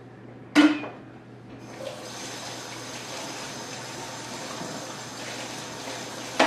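Kitchen sink tap running steadily, with the plastic apple slicer held under it. A short sharp clatter comes about half a second in, before the water starts about a second and a half in.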